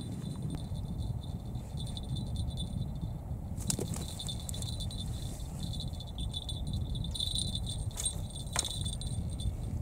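Wind rumbling on the microphone, with a high thin insect trill that comes and goes and a few sharp clicks: one a little under four seconds in and two around eight seconds in.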